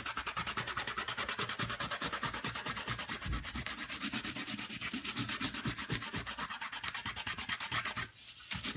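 A palm rubbing rapidly back and forth over a glitter-coated cardstock panel on paper, burnishing the glitter into the double-sided adhesive tape. The quick, even strokes pause briefly near the end, then start again.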